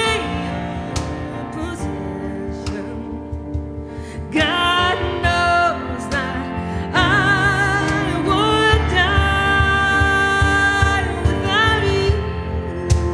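A woman singing a slow song live, holding long notes with vibrato from about four seconds in, over guitar accompaniment.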